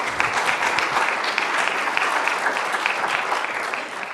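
Audience applauding: many hands clapping steadily, beginning to fade near the end.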